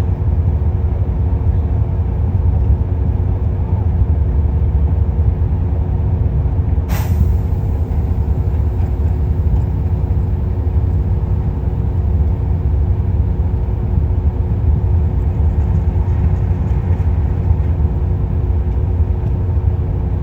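Diesel engine of a Kobelco excavator running steadily with a deep, constant rumble, and a brief hiss about seven seconds in.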